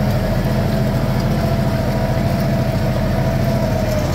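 Compact diesel tractor engine running at a steady speed.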